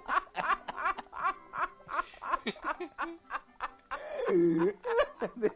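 Men laughing in quick repeated bursts. About four seconds in this gives way to a long, drawn-out voiced sound.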